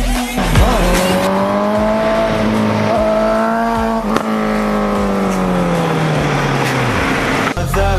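Honda CBR650F's inline-four engine through an Akrapovic full-system exhaust, held at high revs as the bike rides off. It gives one steady engine note that rises slightly, then slowly drops in pitch and stops about seven seconds in.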